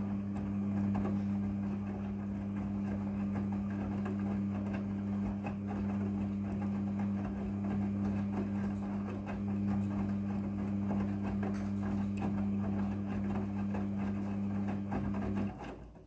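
Midea front-loading washing machine turning its drum during the wash: a steady motor hum with wet clothes tumbling inside. The drum stops shortly before the end.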